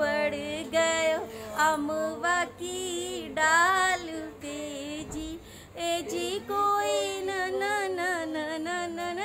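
A woman singing a Teej swing (jhula) folk song: one melodic voice with long, wavering held notes.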